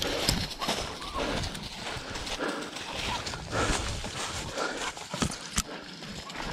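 Hurried footsteps crunching through dry leaf litter and loose rocks, with hard panting breaths about twice a second and occasional sharp crackles of twigs and stones.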